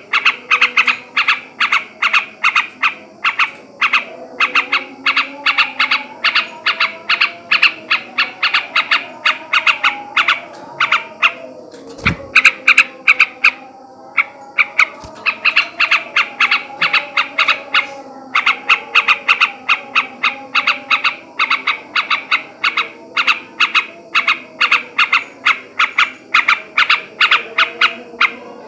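Male yellow-vented bulbul (trucukan) chattering in fast runs of short repeated notes, about four a second, broken by brief pauses. This is the rapid 'ngebren' and 'ngekek' song used to provoke other bulbuls into singing.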